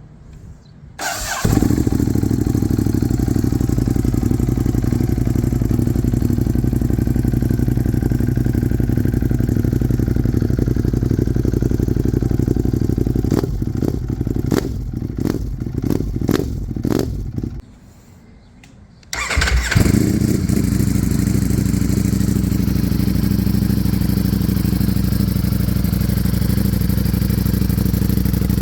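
Ducati motorcycle with an aftermarket performance exhaust starting and settling into a steady idle, then revved in several quick throttle blips. After a short gap, a Ducati fires up again and idles steadily, the next exhaust in the comparison.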